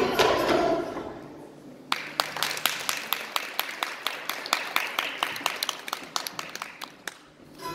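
The last sung notes of a folk ensemble die away, then applause begins about two seconds in: separate hand claps, loudest at the start, thinning out and stopping shortly before the end.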